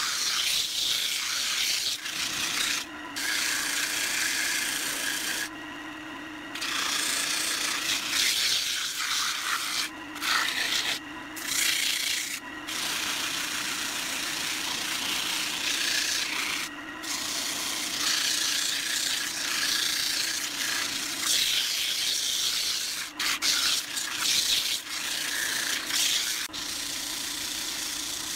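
Sandpaper hissing against a pine vase spinning on a wood lathe, lifted off and pressed back on several times, with the lathe's steady hum underneath.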